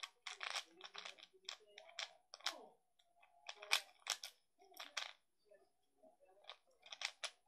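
A plastic Rubik's cube's layers being turned fast by hand during a speedsolve, making rapid, uneven clicks and clacks in quick runs with short pauses.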